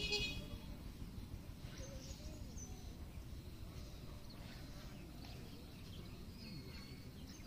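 Rural outdoor ambience: scattered bird calls over a steady low rumble. A short harsh call comes right at the start and is the loudest sound; a few thin high chirps follow later.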